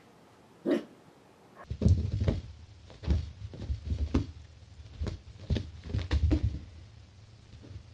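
A cat pouncing and scrambling on carpet after a laser dot makes an irregular run of dull thuds and bumps over several seconds. Before them, about a second in, there is a single short sound.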